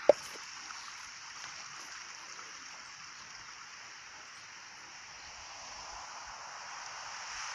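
Steady, even outdoor hiss with no distinct events in it. A single sharp click just after the start is the loudest sound.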